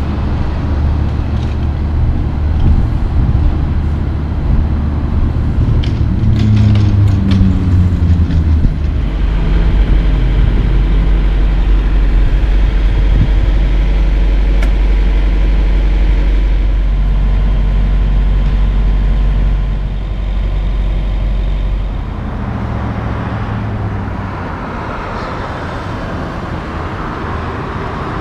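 Kenworth semi truck's diesel engine idling, a steady low drone that is loudest through the middle. A little past two-thirds of the way in, it drops to quieter road traffic.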